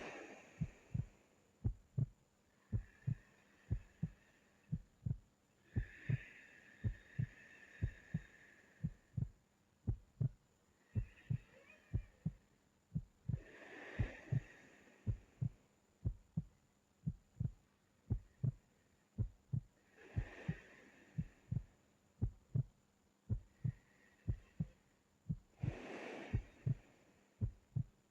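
A steady lub-dub heartbeat of paired low thumps, with slow, even breathing of a sleeping person swelling in about every six seconds.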